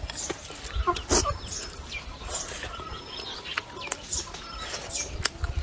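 Chickens clucking, with repeated short, high, falling chirps and a few sharp clicks.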